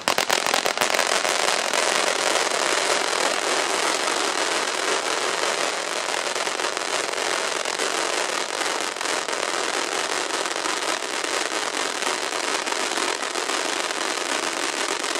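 Röder Drachenfeuer Gold ground fountain burning with a steady hiss and dense crackling from its spray of crackling stars. A few sharp pops come right at the start.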